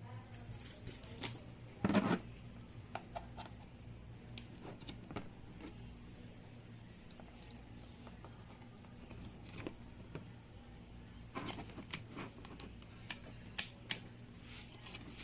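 Scattered clicks and taps of a Fluke 1587 insulation multimeter and its test leads being handled during a test, bunched about two seconds in and again near the end, over a faint low steady hum.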